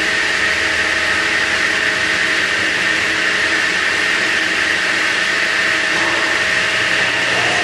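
Wood-cutting saw machinery running steadily at speed with a high whine, no cut being made.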